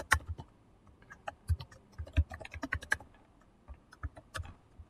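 Computer keyboard keys clicking as a word is typed: a quick run of keystrokes about a second and a half in, then a few scattered ones.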